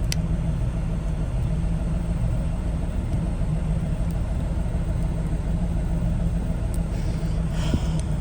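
A vehicle engine running steadily: a low, even rumble, with a faint click near the start and another near the end.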